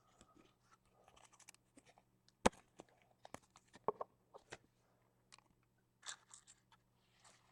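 Trading cards and their packaging being handled: faint scattered clicks, rustles and scrapes, the sharpest click about two and a half seconds in, over a steady low hum.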